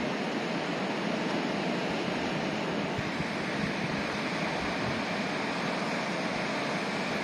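Steady rushing of a river running high and fast, swollen and muddy after heavy rain.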